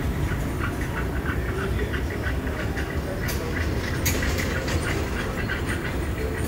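Airport terminal ambience: a steady low rumble with occasional sharp clicks and clatter.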